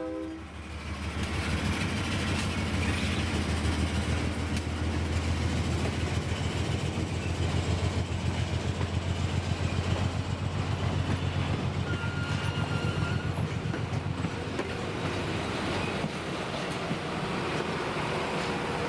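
Railroad locomotive working past, its engine giving a strong low pulsing with a fast, even rhythm; it eases off a little near the end.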